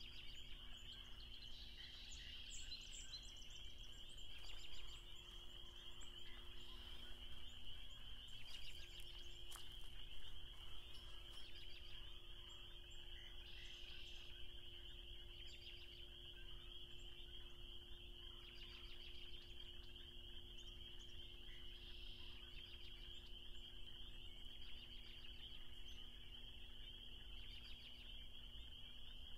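Chorus of spring peepers, a steady shrill trilling, with occasional songbird calls over it and the low rush of a river.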